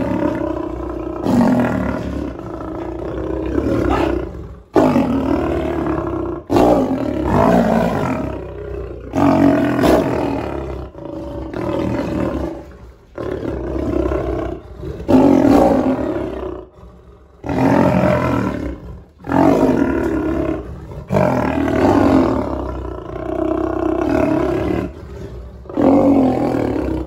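Lions snarling and roaring at close range in about a dozen bouts of a few seconds each, each one starting suddenly, with short pauses between them.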